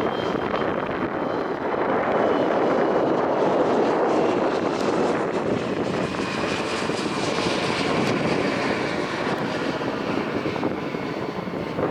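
Airliner's engines passing close by: a loud, steady roar that swells after about two seconds, with a faint high whine slowly falling in pitch.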